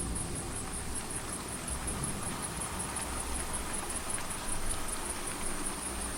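Steady rain with crickets chirping in a fast, even rhythm, over a low rumble.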